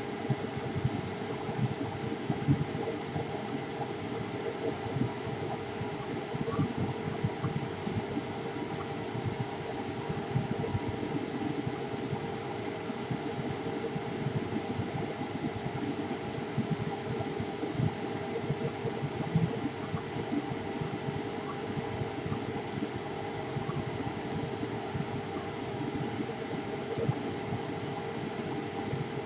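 CNC laser engraver running: a steady machine hum with a few constant tones. A run of faint, evenly spaced high ticks comes in the first five seconds.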